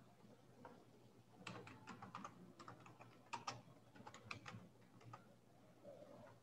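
Computer keyboard being typed on, a faint quick run of key clicks as a word is typed, stopping about five seconds in.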